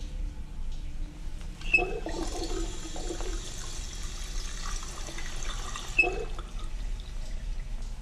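Water running, turned on with a short squeak about two seconds in and shut off with another squeak about four seconds later.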